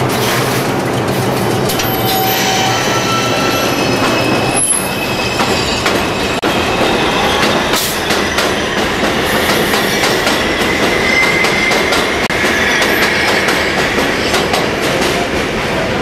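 R142 subway train pulling out and running past at close range. In the first seconds its AC traction motors whine in short tones that step up in pitch. Then come wheels clicking over rail joints and a drawn-out high wheel squeal near the middle, under a steady low hum for the first few seconds.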